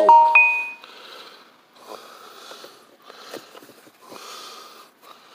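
A person breathing hard close to the microphone, a short noisy breath about every second. It opens with a brief sharp click that rings for under a second.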